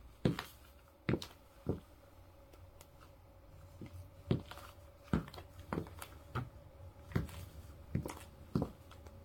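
Platform pumps' heels clicking on a hard floor with each step: about ten sharp clicks, a pause of a couple of seconds after the first three, then a steady walking pace.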